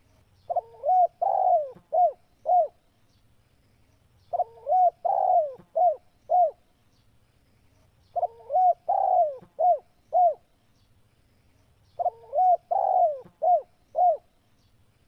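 Spotted dove (tekukur) cooing: four phrases of several coos each, repeating about every four seconds.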